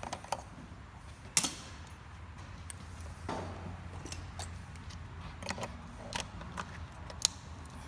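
Scattered metallic clicks and clanks of hand tools working on a mangled electronic deadbolt lock, with one short scrape. The two sharpest clicks come about a second and a half in and near the end.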